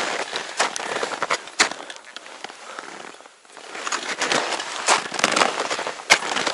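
Boots crunching step by step in firm snow on a climb, with irregular crackling and rustling of gear and clothing; a brief pause about three seconds in.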